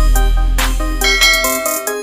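Background electronic music with a heavy bass line and a steady beat; the bass drops out briefly near the end.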